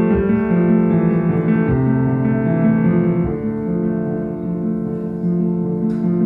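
Background music with piano: sustained chords that change every second or so.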